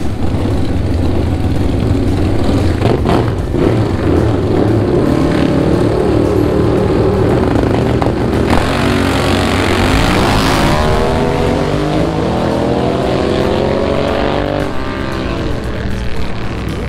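Drag-racing motorcycles running loud at the starting line, then launching about eight seconds in and accelerating hard down the strip. The engine note climbs in steps as it shifts gears, then falls away as the bikes pull off into the distance.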